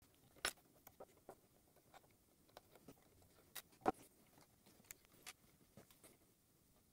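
Scattered small clicks and taps of hands handling a plastic quadcopter frame on a wooden table, the two loudest about half a second in and just before four seconds.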